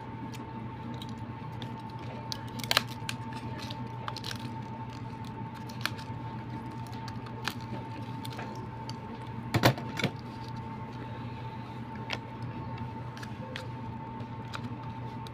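Handling of a clear plastic cup with a snap-on lid: scattered sharp plastic clicks, a pair of louder ones near the middle. A steady high hum and a low hum sound underneath.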